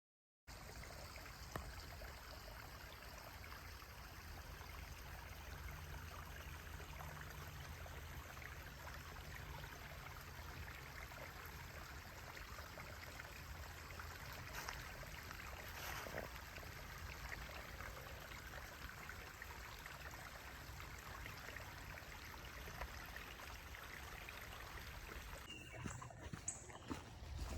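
A small woodland stream flowing, a steady rushing trickle. Near the end, a few footsteps on the trail.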